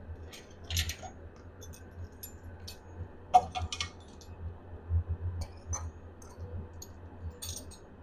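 Light clicks and taps of a teaspoon against a nonstick pan as cumin seeds are tipped into a little oil, with one sharp, briefly ringing tap about three and a half seconds in. A low steady hum runs underneath.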